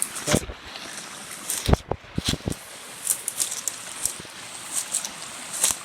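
Mountain stream running over rocks, a steady rush, with scattered clicks and a few heavier knocks.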